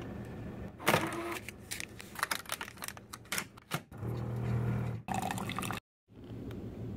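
Single-serve coffee brewer in use: a run of sharp clicks and clatter as it is handled and its buttons pressed, then a steady low hum as it brews, cut off suddenly near the end.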